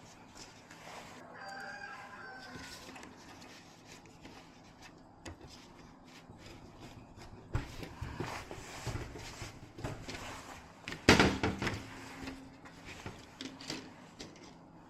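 A rooster crows once, a call of about a second and a half starting about a second in. Scattered clicks and a loud knock come about eleven seconds in.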